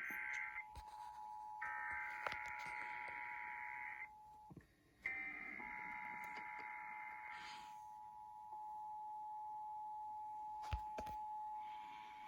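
Emergency Alert System tones from broadcast radio: three warbling SAME header data bursts overlapping the steady two-tone EAS attention signal. The attention signal drops out briefly about four seconds in, then holds on after the bursts end, with a few sharp clicks. The overlap suggests two stations' alerts playing at once.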